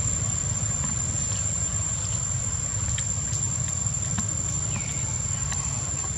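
Outdoor ambience: a steady high insect drone over a low rumble, with a few faint clicks and a short falling chirp about five seconds in.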